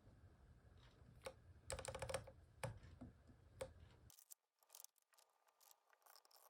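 Small plastic clicks and clacks of keycaps being pulled off and pressed onto a Keychron Q11 keyboard's switches. The clicks are scattered, with a quick cluster about two seconds in, and turn fainter in the second half.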